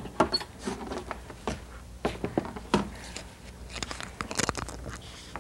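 Plastic pet carriers being handled and shifted: irregular knocks, clunks and rattles, with a quick run of rattling about four seconds in.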